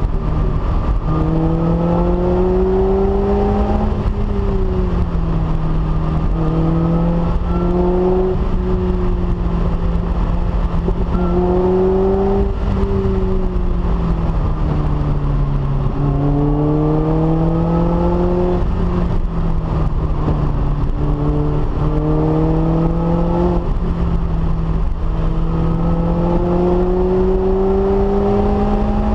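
Lotus Elise S's supercharged 1.8-litre four-cylinder engine through a Stage 3 exhaust, pulling hard with the revs climbing over a few seconds and then dropping at gear changes or easing off, again and again. The engine note rises and falls continuously, with about six or seven climbs.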